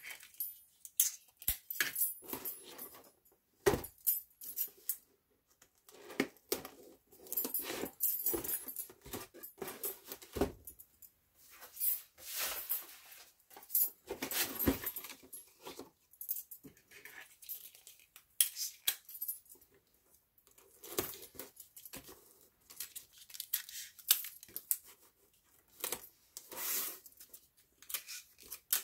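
Brown paper bag being handled and folded, crinkling and rustling in irregular bursts, with metal bangle bracelets clinking together on the wrist.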